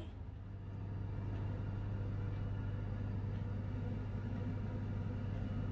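Steady low mechanical hum with a faint even hiss, the constant background drone of a kitchen's machinery.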